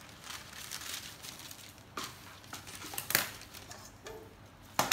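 Parchment paper rustling and crinkling as it is cut with a knife, then a few sharp metallic knocks as a metal cake tin is handled on the counter. The loudest knock comes about three seconds in, and another comes near the end.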